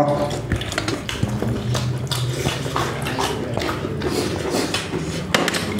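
Eating with the hands: fingers mixing and scooping rice on plates and in a bowl, with many small irregular clicks and clatters of dishware.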